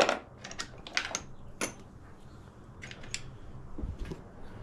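A string of sharp, small clicks and taps, irregularly spaced, about eight in all, the loudest right at the start: small parts and tools being handled.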